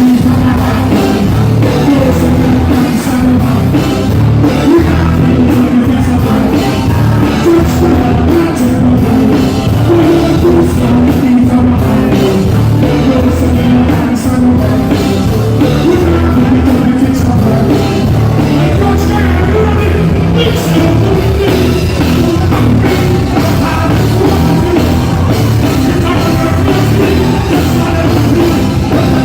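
Loud live band music with drums and singing over it, played without a break.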